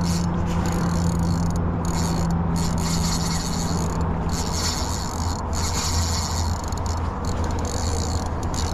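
Penn Fierce 4000 spinning reel working with a continuous mechanical rasp while a hooked chum salmon is played, over a steady low hum.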